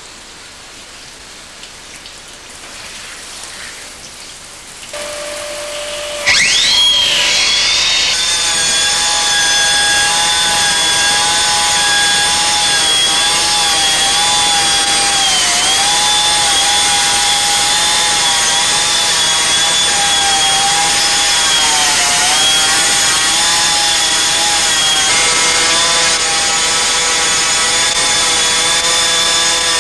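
Portable hydraulic stone-cutting saw with a cutting disc. A steady hum starts about five seconds in, then the disc winds up with a rising whine and runs on at a steady high pitch. The pitch sags briefly twice, as the disc is loaded in the cut.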